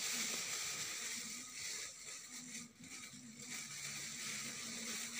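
Plastic bag of cornstarch rustling and crinkling as a hand digs a spoon into it to scoop out a spoonful, louder in the first two seconds.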